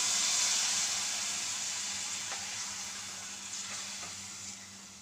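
Water sizzling and hissing as it hits hot fried rice and oil in a nonstick pan. The sizzle dies down steadily as the water takes up the heat, with a few faint taps in the second half.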